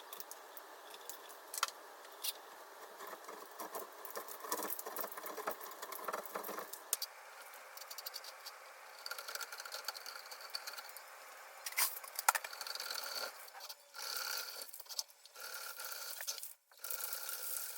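Hand drain snake's cable scraping and rattling inside an old rusted steel drain pipe, with sharp clicks and short pauses as it is pushed and twisted. It is working through buildup that has narrowed the 1.5 inch pipe.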